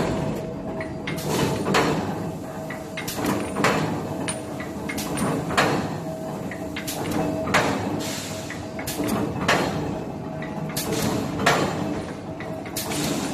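BZQ-210 mechanical bar shear running, its motor and drive giving a steady hum. The blade cycles about every two seconds, each stroke a sharp clank.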